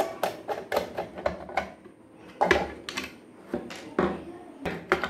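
A run of irregular plastic clicks and knocks as the screws and clear plastic cover are taken off a Deltron single-phase static energy meter and the parts are set down on a tabletop.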